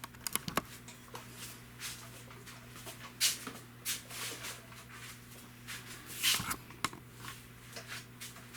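Handling noise: a quick run of clicks near the start, then scattered rustling and shuffling, over a steady low electrical hum.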